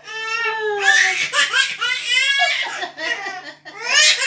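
Baby laughing in repeated high-pitched bursts, with other people laughing along.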